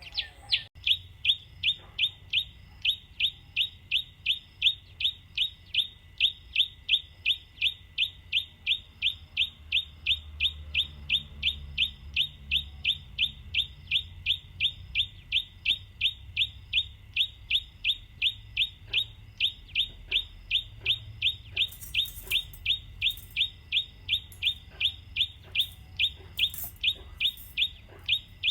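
A bird's call: one short, high chirp repeated at a very even pace, about three times a second.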